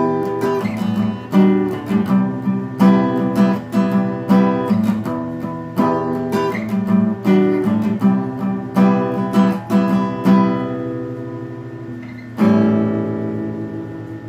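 Acoustic guitar strummed in a steady rhythmic pattern of chords. About twelve seconds in, one last chord is struck and left to ring out.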